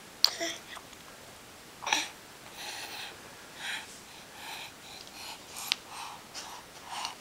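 A baby breathing in short, noisy puffs about once a second, with a sharp mouth click near the start and another about two-thirds through.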